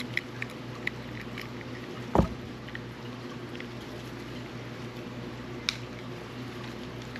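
Small scattered clicks and ticks of hands working a Penn Battle II 3000 spinning reel as its handle is taken off, with one dull thump about two seconds in, over a steady low hum.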